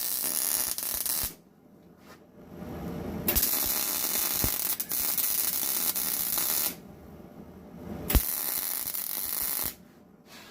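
Electric arc welding on steel, in three bursts of a few seconds each with short pauses between.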